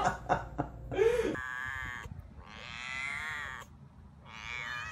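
A cat meowing three times in drawn-out, wavering meows, the middle one the longest. Before them, in the first second or so, there are a few short clicks and a brief voice-like sound.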